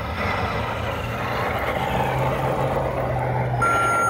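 Imex HG-P408 1/10-scale RC Humvee driving across pavement with a steady low hum, then a single steady electronic beep near the end.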